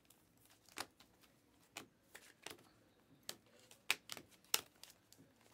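A stack of Bowman Chrome trading cards being flipped through one card at a time in the hands. The cards make a string of faint, irregular clicks and slides as each one is moved off the pile.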